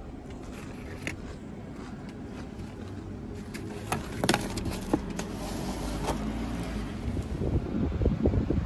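Low rumble of a road vehicle swelling as it passes, with a few sharp clicks partway through.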